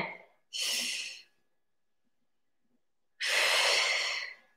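A woman breathing out hard through the mouth twice, as exertion breaths during resistance-band rows. The first breath is short; the second, about three seconds in, is longer and louder.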